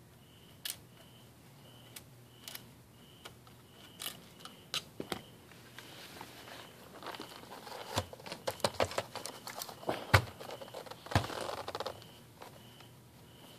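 Scattered small clicks of a screwdriver turning laptop screws, then denser plastic clattering and rustling with a few sharp knocks in the second half as the Sony Vaio laptop is picked up and turned over.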